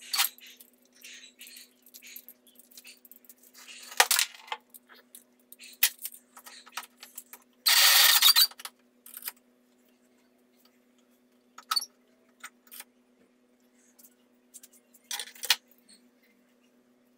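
Metal clinks, clicks and knocks as a corded drill with a square-hole drill adapter is handled and clamped into a bench vise, with one louder noise lasting about a second near the middle. A faint steady hum runs underneath.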